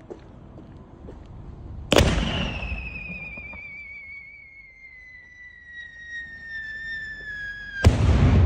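3-inch whistle-to-salute aerial shell: the lift charge fires from the mortar tube with a sharp thump about two seconds in, then a whistle slowly falls in pitch for about six seconds as the shell climbs, and near the end the salute goes off with a loud, sharp bang that rumbles on.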